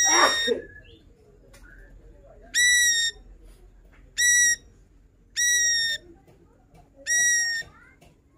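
Ashy drongo giving five loud, clear whistled calls, each about half a second long and spaced one to two seconds apart. The first call has a harsh rasp mixed in.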